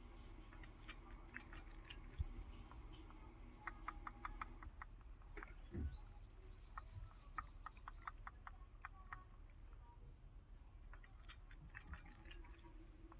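Faint clicks and taps in quick clusters of several at a time, from a sound-effect ringtone of a Samsung SHW-A210S phone.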